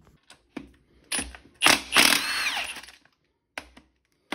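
Cordless Milwaukee Fuel brushless ratchet undoing a connecting rod cap bolt. A few light clicks come first, then a short spurt about a second in. The motor then runs for about a second and a half, its whine falling as it slows.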